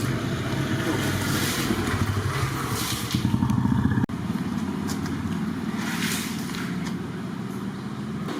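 A steady low engine hum, like a motor running at idle, with short bursts of hiss over it; it breaks off sharply about four seconds in and carries on at once.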